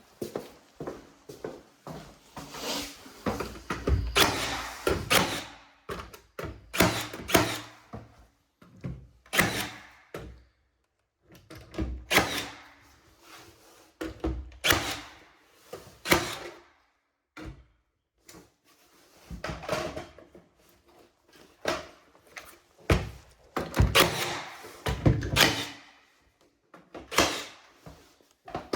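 Irregular wooden knocks and thuds of cabinet work, some with a short scrape, coming in clusters with pauses between them.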